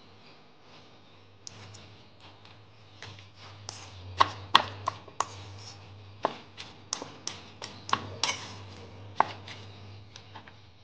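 Metal fork clinking and scraping against a ceramic bowl while mashing a block of tofu, in irregular sharp taps that begin about a second and a half in.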